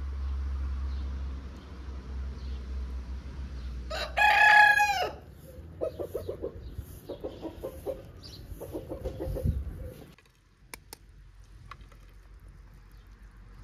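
A rooster crows once, loud and about a second long, followed by a run of short clucks from chickens. A low steady rumble underneath drops away about ten seconds in.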